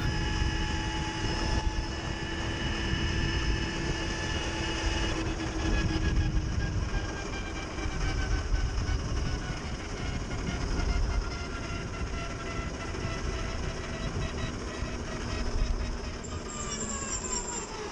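Energica Ego electric motorcycle at speed: its electric motor and drivetrain whine in steady tones over wind and tyre-on-road rumble. Near the end the whine falls in pitch as the bike slows down.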